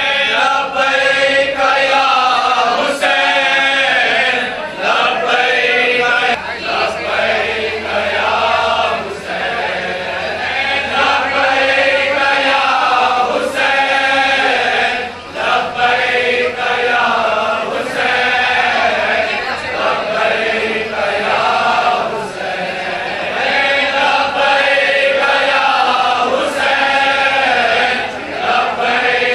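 A large group of men chanting a mournful nauha in unison, a Shia Muharram lament for Imam Hussain, led in call-and-response.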